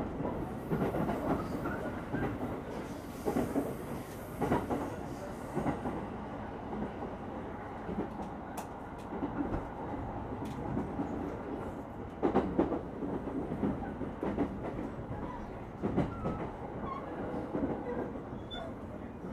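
Interior sound of a JR Utsunomiya Line commuter train running between stations: a steady low rumble from inside the passenger car, with irregular knocks of the wheels over the rails every few seconds.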